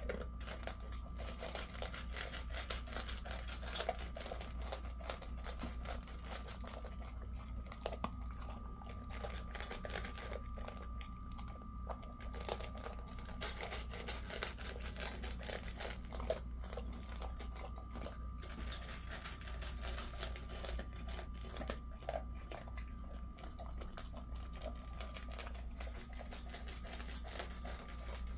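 Jindo dog eating dry kibble from a stainless-steel bowl: steady crunching and chewing, with kibble clicking against the metal bowl.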